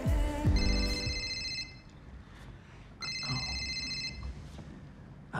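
A phone ringing with an electronic ringtone: two rings of about a second and a half each, with a pause of about a second and a half between them, and a third beginning at the end.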